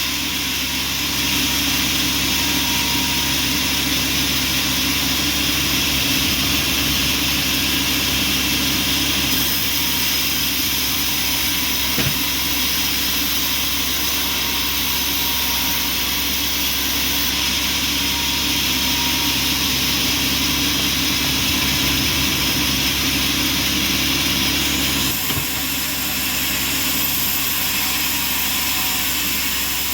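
Bandsaw sawmill running steadily: a constant machine drone with steady high whining tones. There is a brief knock about twelve seconds in, and the tone shifts slightly about twenty-five seconds in.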